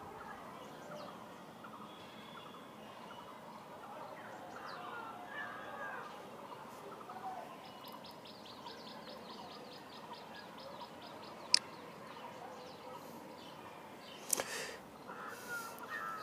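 Faint birds chirping, with a rapid ticking trill for a few seconds midway. A single sharp click comes about eleven and a half seconds in, and another short noise about fourteen seconds in.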